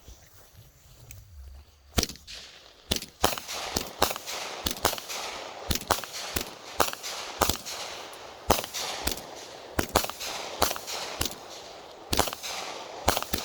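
Consumer 200-gram firework cake firing its shots: after a quieter first two seconds, a fast run of sharp bangs, about one to two a second, with noise between them, as the shells launch and break into loud bursts.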